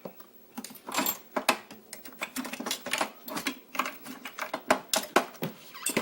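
Small metal lockpicking tools and lock parts being rummaged through and handled, with many irregular sharp clicks and light clatter.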